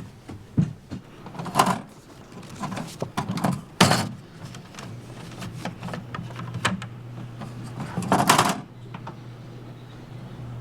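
Indoor handling sounds: scattered knocks and clatter with three louder noisy bursts, and a steady low hum that starts about halfway through.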